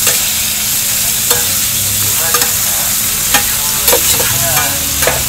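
Sausages, bacon, an egg and a patty sizzling steadily on a hot flat-top griddle, with a handful of sharp clicks and scrapes of a metal spatula against the plate.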